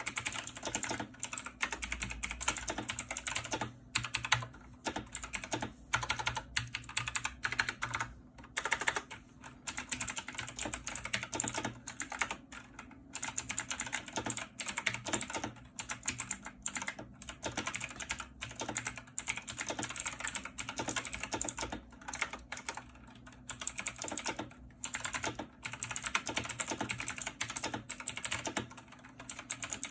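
Typing on a mechanical gaming keyboard with clicky switches: a fast, steady run of sharp key clicks, broken by a few brief pauses.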